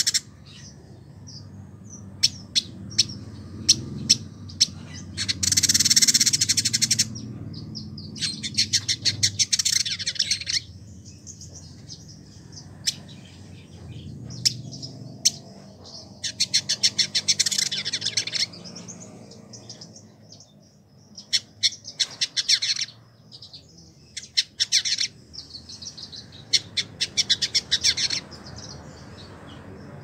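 Caged male village indigobird (Vidua chalybeata) singing in bursts of rapid, high chattering trills, each a second or two long and coming every few seconds, with single sharp chips between them.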